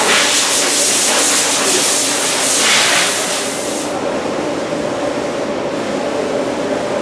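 Factory machinery: a loud, steady hiss like escaping air or spray that cuts off about four seconds in, over a continuous machine hum.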